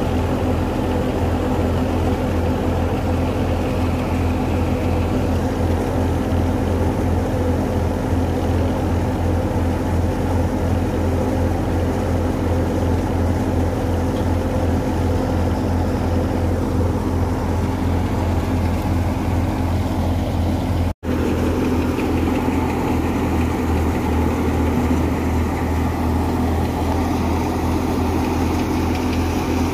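Wheat thresher running steadily under load as wheat straw is fed in: a constant machine drone with a fast low throb, cutting out for a split second about two-thirds of the way through.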